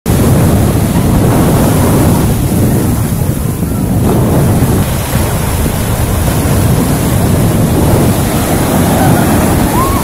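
Sea surf breaking and washing in over the shallows, mixed with heavy wind buffeting on the microphone: a loud, steady rushing.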